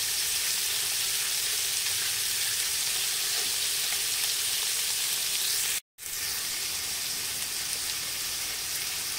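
Pork ribs searing in hot lard in a large pot, a steady sizzle. It cuts out for an instant about six seconds in and then carries on.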